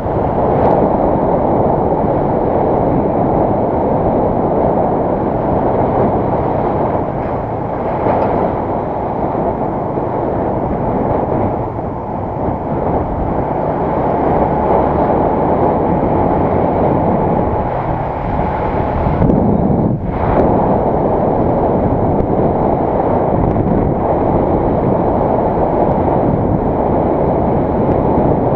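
Steady rushing wind on the microphone of a moving motorbike, blended with the bike's engine and road noise. The noise dips briefly about two-thirds of the way through.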